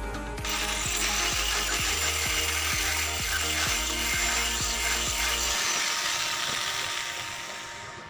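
Corded electric drill running while it bores holes in a white board hull, fading out near the end. Background music with a steady beat plays underneath.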